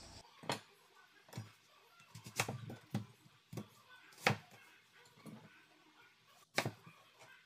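Chef's knife cutting thick chunks of onion and apple, each stroke knocking on a plastic cutting board: irregular knocks about once a second, the loudest about four and six and a half seconds in.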